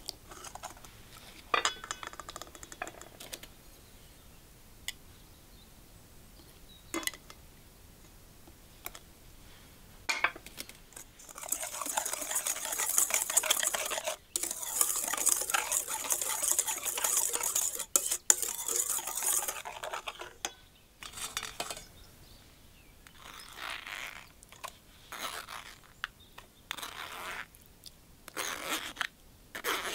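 Wire whisk beating a milky batter in a bowl: a fast, continuous metallic clatter and scrape for about nine seconds in the middle, after a few light clinks of the whisk against the bowl. Near the end come shorter bursts of scraping as pumpkin purée is pressed through a metal sieve.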